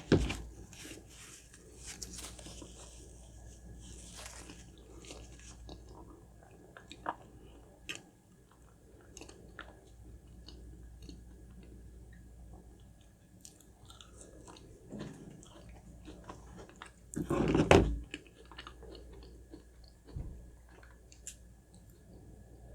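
Close-miked chewing and biting of food, with many small wet mouth clicks throughout and one louder crunching burst about 17 seconds in.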